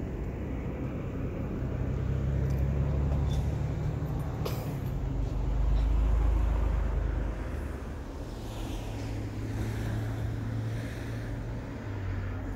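Road traffic: a motor vehicle passing on a street, a low engine rumble that swells to its loudest about six seconds in and fades, with a single sharp click shortly before the peak.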